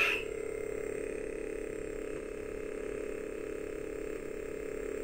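MHS AC51 lightsaber's soundboard playing its idle hum through the hilt speaker on sound font number 1: one steady electric hum.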